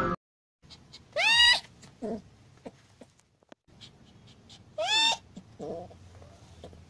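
Cat in labor meowing twice, about three and a half seconds apart. Each loud cry is followed by a fainter, lower one.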